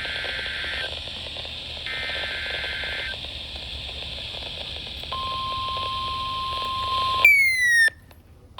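Weather radio hiss with two short dual-tone beeps. About five seconds in, a steady 1050 Hz NOAA Weather Radio warning alarm tone starts. Near the end, the loudest sound, a falling tone sweep, cuts off suddenly to near silence.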